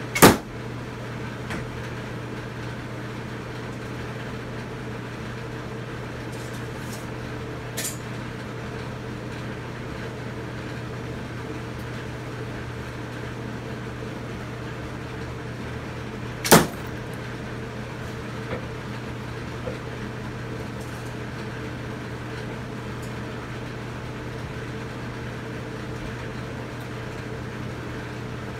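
Arrows striking a cardboard-box archery target: a loud, sharp impact just after the start and another about halfway through, with a fainter knock about a quarter of the way in. A steady low hum and noise run underneath.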